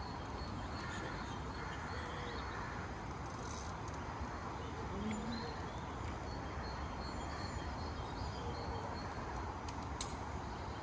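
Steady outdoor background noise with a few faint bird chirps, and a single sharp click near the end.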